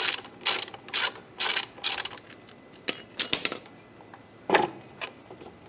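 Hand socket ratchet clicking in short strokes, about two a second, working a motorcycle kickstand mounting bolt. The strokes stop after about two seconds, and a few sharper clicks follow around three seconds in.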